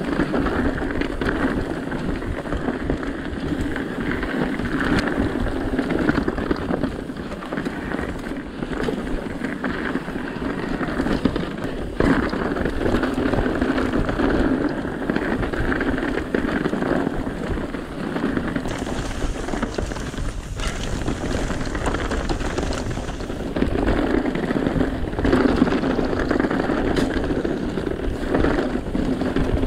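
Mountain bike riding fast down a dry, rocky dirt trail: steady tyre noise on dirt and loose stones, with the bike rattling and knocking over bumps.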